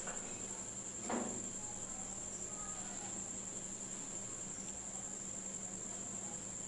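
A steady high-pitched trill with a low steady hum under it, and one short thump about a second in.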